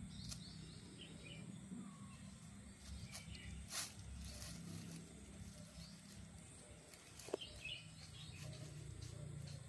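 Faint outdoor background: a low steady hum with a few faint bird chirps and two soft clicks, one near the middle and one about three-quarters through.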